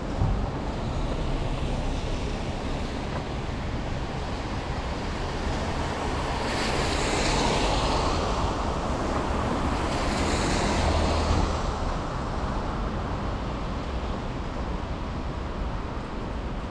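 Vehicle tyres hissing on a wet road over a steady low traffic rumble. Two passing vehicles swell up and fade, one about six seconds in and another about ten seconds in.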